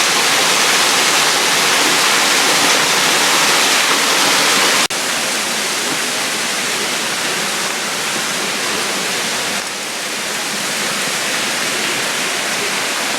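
Waterfall and the stream below it rushing steadily. The level drops suddenly about five seconds in.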